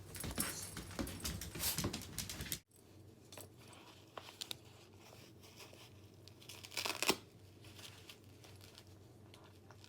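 Rustling and crinkling handling noise for the first two and a half seconds, then it cuts off suddenly; a brief rustle follows about seven seconds in.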